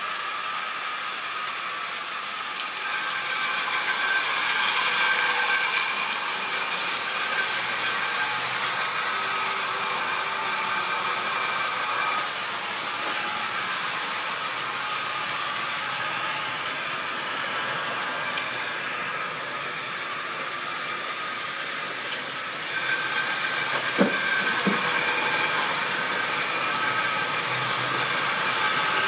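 Model railway train running on the layout: the locomotive's small electric motor gives a steady whine over the rattle of the wagons on the track. Late on, two sharp clicks stand out.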